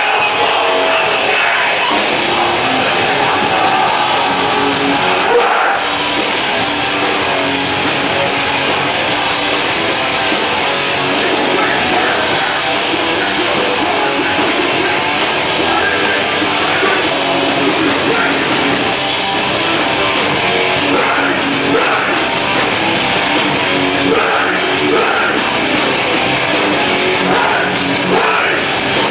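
Live hardcore band playing loud: distorted electric guitar, bass and drums under shouted vocals, running steadily.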